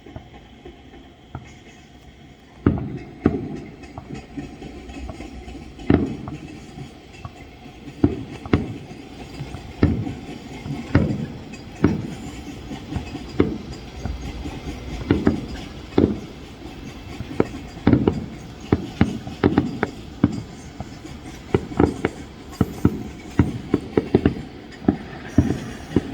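Aerial fireworks shells bursting in a string of sharp booms at irregular intervals, starting about three seconds in and coming faster and more densely after about fifteen seconds.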